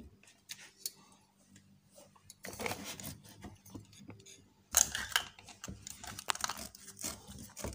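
Handling noise from a cylindrical perfume case with a chain handle being gripped and worked at its lid: short clicks, rustles and small knocks, the sharpest a little under five seconds in.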